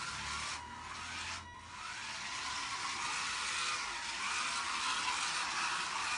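Four small DC gear motors of a wheeled Arduino robot car whirring as it drives over the floor, with two brief drops about half a second and a second and a half in.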